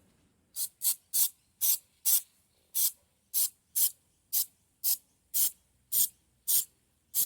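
Aerosol spray paint can fired in short bursts, about fourteen quick hisses roughly two a second, painting the bare metal of freshly drilled and countersunk holes.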